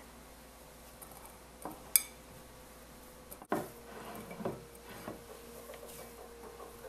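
Hands kneading and rubbing crumbly khoa against the sides of a glass mixing bowl, louder and busier in the second half. A single sharp clink against the glass about two seconds in.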